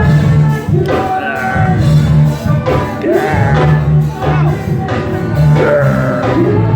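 Music with singing over a steady, repeating bass line.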